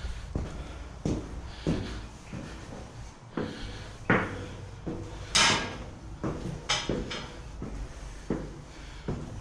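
Knocks and thuds of a door being pulled open and handled at a small lookout shelter, every half second to a second, with one louder scraping noise about five seconds in.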